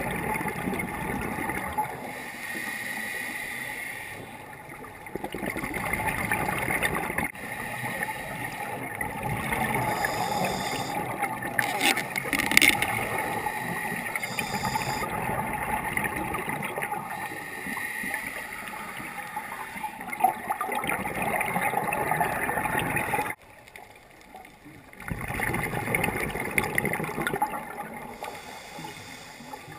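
Underwater bubbling and gurgling from a scuba diver's exhaled breath through the regulator, muffled by the camera's waterproof housing. It comes in loud bursts every few seconds with quieter gaps between, the longest gap about three quarters of the way through.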